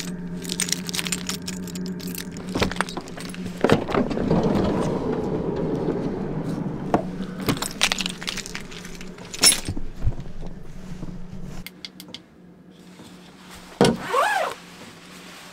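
A bunch of keys jangling, with clicks and knocks as a van door is unlocked, opened and shut, over a steady low hum that cuts out about twelve seconds in.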